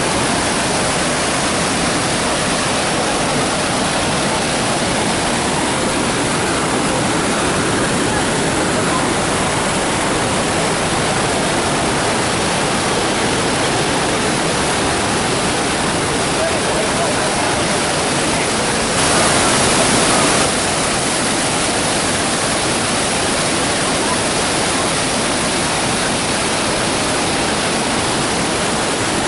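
Waterfall: falling water rushing steadily, briefly louder for a second or so about two-thirds of the way through.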